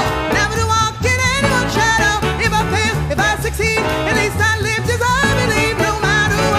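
Vintage 1940s-style swing jazz cover of a pop ballad playing, a male singer over a band with a steady walking bass.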